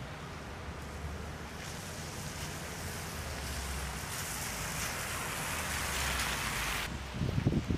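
Outdoor street ambience: a low steady rumble under a rushing hiss that builds over several seconds, then cuts off abruptly near the end, followed by brief louder, uneven sounds.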